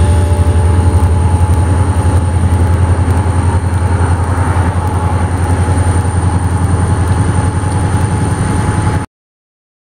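Steady low rumble of Norfolk Southern diesel locomotives working through a rail yard. It cuts off abruptly about nine seconds in.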